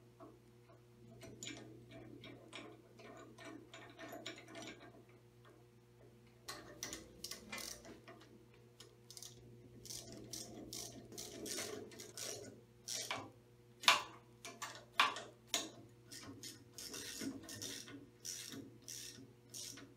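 Hand ratchet clicking and steel clinking as bolts are run into the cylinder block of a Big Blu Max 110 power hammer: irregular small ticks, with a few sharper clinks in the second half, over a faint steady hum.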